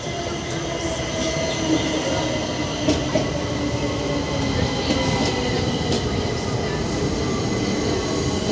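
Washington Metro train of CAF 5000-series and Breda 4000-series railcars pulling into the station and rolling past: a steady wheel-on-rail rumble with a high whine held throughout and a few sharp clacks over the rails, growing slightly louder as the cars go by.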